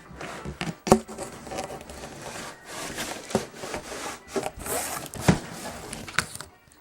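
Cardboard box being handled and opened to unpack a box fan: continuous scraping and rubbing of cardboard, with several sharp knocks, the loudest about a second in.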